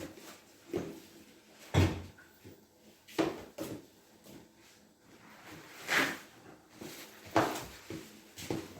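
Kitchen clatter: about seven separate knocks and clunks of things being handled and set down. The loudest come about two seconds in and near the end.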